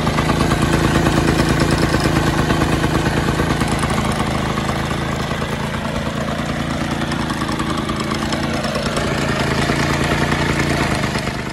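Original two-stroke engine of a Jacobsen Greens Mower 22 reel mower running steadily at a fast, even beat. It eases off a little midway and picks back up near the end.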